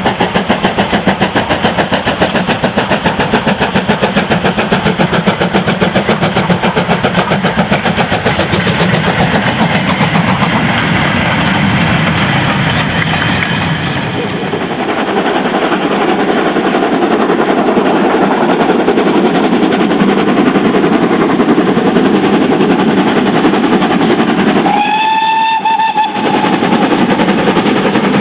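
Steam locomotive working a goods train, its exhaust beating fast and evenly. After a change about halfway, a double-headed steam train with a heavier, denser exhaust sound takes over, and a steam whistle sounds once for about a second near the end.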